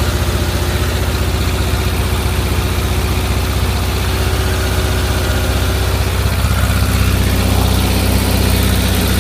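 Volkswagen Type 4 1.7-litre air-cooled flat-four engine running steadily, with a knocking sound in it whose cause the owner has not found.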